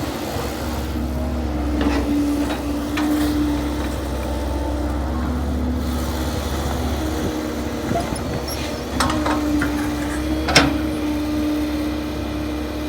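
An engine running steadily with a low rumble and a steady hum, with a few sharp clicks or knocks in the second half, the sharpest one near the end.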